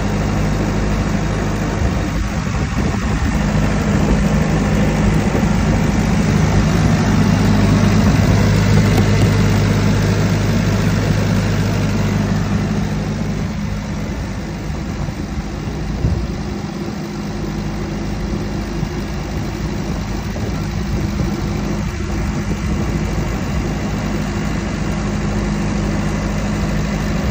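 2015 Case 650L crawler dozer's diesel engine idling steadily. It swells louder for several seconds in the first half, then settles back a little.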